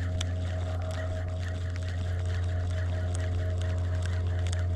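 A small motor running with a steady low hum and a few fainter higher tones, with light clicks over it.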